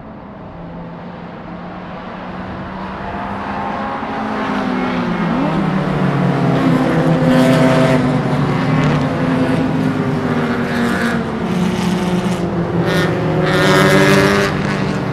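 Several race car engines at speed, running together and growing louder over the first several seconds as the cars close in. Their overlapping notes rise and fall in pitch as they pass, with a loud pass near the end.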